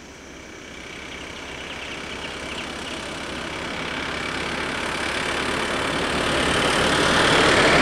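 A motor vehicle approaching along the road, its engine and tyre noise growing steadily louder.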